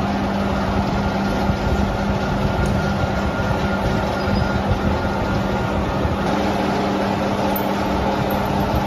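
Workshop machinery running steadily: a dense mechanical rumble with a constant low hum.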